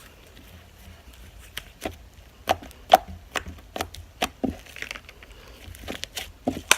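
Slime being squeezed and stretched by hand, giving off irregular sharp clicks and pops.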